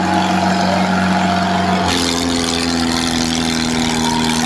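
Mahindra Arjun tractor's diesel engine running steadily. About two seconds in its pitch steps up as the revs rise, and it holds at the higher speed.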